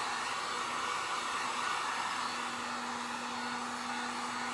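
Harbor Freight electric heat gun running steadily, its fan blowing hot air to dry acrylic paint. Under the rush of air is a low steady hum that comes in stronger about halfway through.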